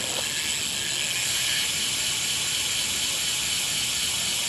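BMX rear wheel's Primo Mix hub freewheeling, its pawls clicking so fast that they blur into a steady, high-pitched buzz.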